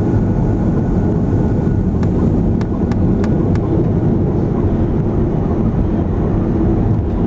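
Cabin noise of an Airbus A330 on its landing rollout: a loud, steady rumble of the engines and the wheels running on the runway. A few light clicks come in the middle.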